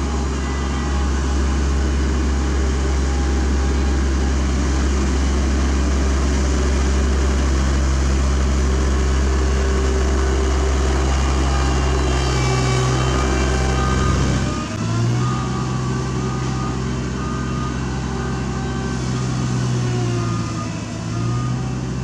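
Caterpillar CB24 tandem roller's diesel engine running while it compacts fresh asphalt, with a strong deep hum that drops away suddenly about two-thirds of the way through. After that the engine note dips and recovers a couple of times.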